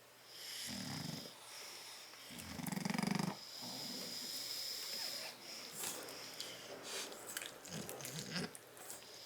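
Sleeping bulldogs snoring, a snore typical of the breed's short, flat muzzle. Two long rasping snores come about a second and two and a half seconds in, the second the loudest, then softer snuffling breaths near the end.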